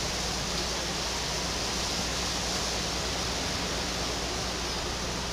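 Steady hiss with a low hum beneath it and no speech: the background noise of a video-call recording during a pause in the conversation.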